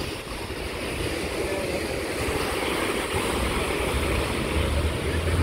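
Surf washing in at the shoreline with wind buffeting the microphone: a steady rushing noise with a low rumble that grows louder toward the end.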